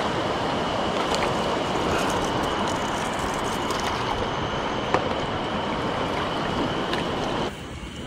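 Shallow mountain stream rushing over rocks in a steady wash, with a few short splashes and clicks as a hooked char thrashes at the surface while it is reeled in. The water grows quieter near the end.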